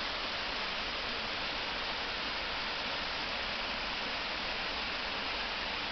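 Steady rush of flowing water from a stream or waterfall, an even hiss with no breaks or changes.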